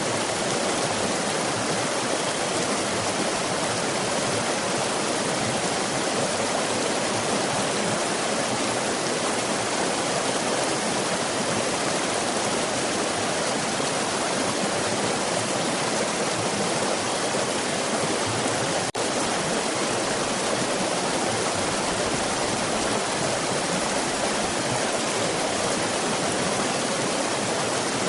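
Waterfall: water pouring and splashing in a steady, even rush, with a split-second dip in level about two-thirds of the way through.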